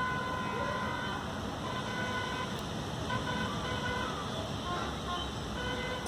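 Background road traffic: a steady hiss of traffic noise with vehicle horns sounding several times, short steady toots coming and going.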